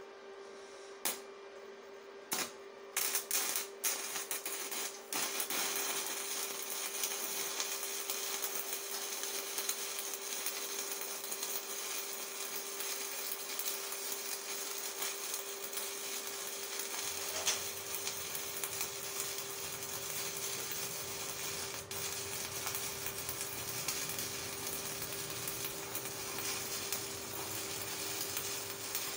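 Stick-welding arc from an Evrolux IWM190 inverter welder burning an LB basic-coated (low-hydrogen) electrode in the overhead position. A few sharp cracks in the first four seconds as the arc is struck, then from about five seconds a steady crackle as the bead is run.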